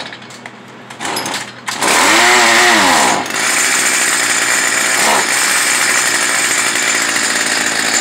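Stihl FS 55 R string trimmer's small two-stroke engine idling, blipped briefly about a second in, then opened to full throttle. The revs rise and dip once before holding steady at high RPM for about five seconds, dropping back right at the end. The carburetor is being tuned at wide-open throttle on an engine that bogs when the gas is hit.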